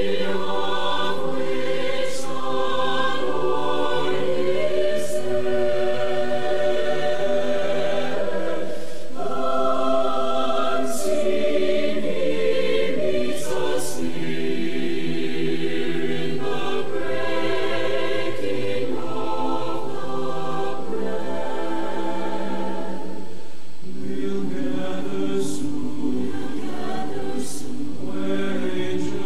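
A choir singing a hymn in held, slowly changing chords.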